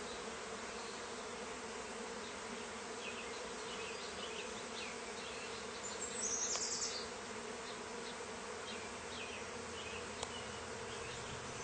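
Steady hum of a honeybee swarm, thousands of bees buzzing on and around a swarm-trap bait box as the swarm moves into it. A brief high chirp sounds about halfway through.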